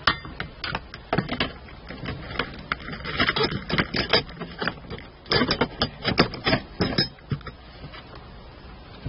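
Irregular clicks, taps and knocks of tools and parts being handled during reassembly work, coming in two busy runs around the middle, then dying down.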